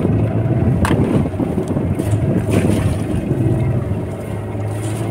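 Fishing boat's outboard engine running steadily with a low drone, under the rush of wind and choppy water.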